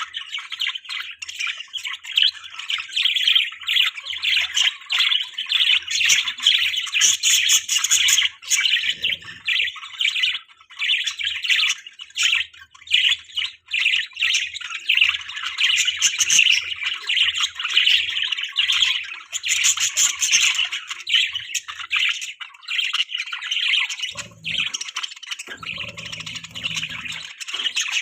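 A group of budgerigars chattering, with a continuous dense stream of short chirps and squawks.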